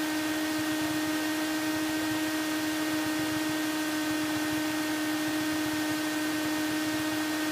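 Cessna 172SP's four-cylinder Lycoming engine idling on the ground, heard inside the cabin as a steady, unchanging hum over an even hiss.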